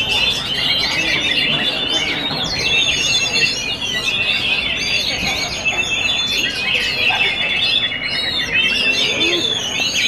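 Caged Oriental magpie-robins singing several at once: a dense, unbroken tangle of loud whistles, rapid trills and quick rising and falling notes.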